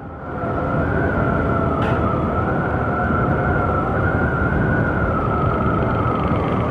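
Honda Vario 150 scooter's 150 cc single-cylinder engine and belt drive picking up speed in the first second, then holding a steady cruising note with a high whine, under wind noise on a helmet-mounted microphone. A single short click about two seconds in.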